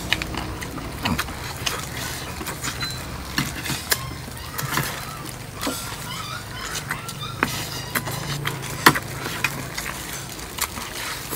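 Spoons clicking and scraping against plates at irregular moments during hurried eating.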